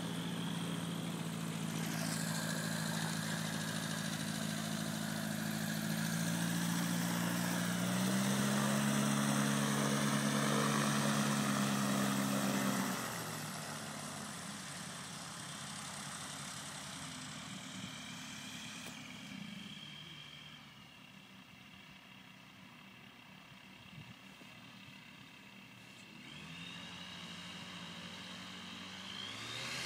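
Ultralight aircraft engine and propeller running, stepping up in pitch about eight seconds in, then dropping and fading from about thirteen seconds as the plane moves off. After a quieter stretch, engine sound grows louder again near the end.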